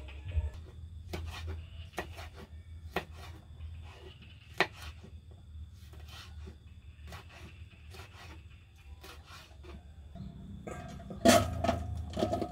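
Knife chopping long beans on a wooden cutting board, sharp knocks about once a second. Near the end the chopped vegetables are scraped off the board with the knife into a stainless steel bowl, a louder clatter with some metallic ringing.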